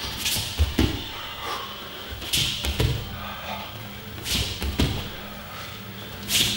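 Bare hands and feet thudding onto foam grappling mats as a gorilla pass drill is done: a pair of dull thuds about every two seconds as the hands plant and the feet hop around. Each pair comes with a short, sharp, hissing breath.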